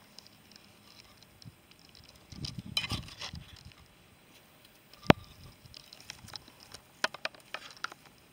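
Rustling and crackling of dry grass and leaves as a kitten rolls on its back and paws at a shrub, with one sharp click about five seconds in and a run of light clicks and ticks near the end.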